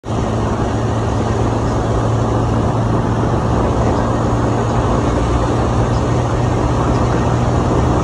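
Motorcycle engine running steadily at high revs under load as the bike speeds up past 90 km/h, with heavy wind noise over the microphone.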